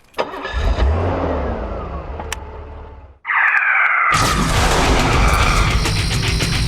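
A car engine rumbles and winds down with falling pitch, fading over about three seconds. After a sudden cut and a short falling tone, loud rock music starts about four seconds in.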